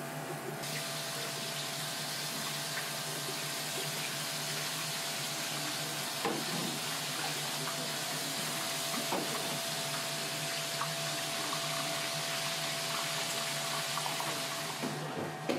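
Water running steadily from a tap, turned on just under a second in and off near the end, with a few short knocks of a knife on a plastic cutting board and a steady electrical hum underneath.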